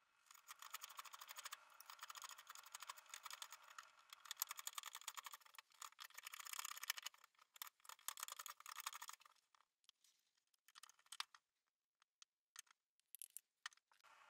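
Hook knife shaving the inside of a green birch cup: a dense run of fine, crackling scraping cuts that lasts about nine seconds, then a few scattered clicks.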